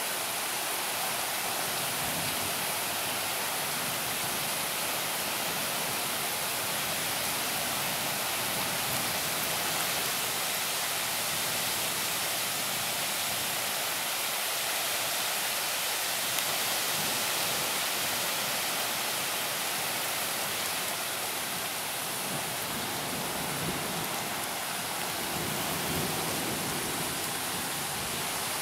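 Heavy rain pouring down in a thunderstorm, a steady dense hiss.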